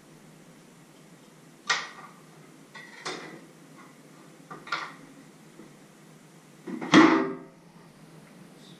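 Kitchen clatter: four sharp knocks of utensils and objects being handled on a wooden counter, one to two seconds apart, the last and loudest about seven seconds in with a short ringing tail.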